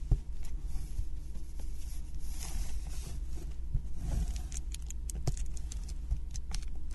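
Fingernails picking and scratching at the plastic shrink-wrap of a wooden puzzle kit, with crinkling film and many small sharp clicks. The wrap will not tear open because the nails are too short.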